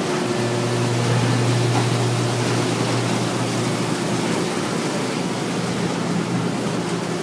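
Potato washing machine running: a steady motor hum under an even rushing hiss.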